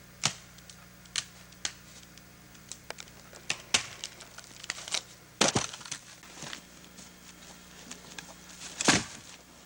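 Footsteps through crusted snow, dry grass and brush, with twigs and sticks cracking underfoot. The cracks and crunches come at uneven intervals, the loudest about halfway through and again near the end.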